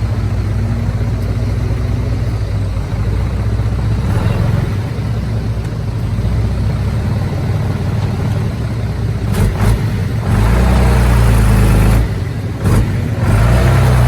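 Heavy diesel earthmoving machinery running steadily. The engine note surges louder under load twice near the end, with a couple of short knocks.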